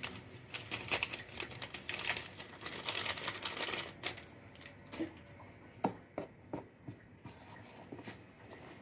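Paper baking-powder sachets being handled, opened and tapped out over a mixing bowl: a quick run of crackling clicks and rustling for about four seconds, then a few separate sharp taps.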